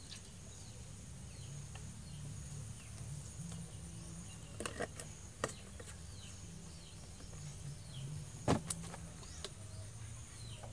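Cooking oil poured from a large plastic bottle into a wok, then the bottle's plastic cap handled with a few sharp clicks and the bottle set down with a knock about eight and a half seconds in. Under it a low steady rumble, with insects buzzing steadily and birds chirping.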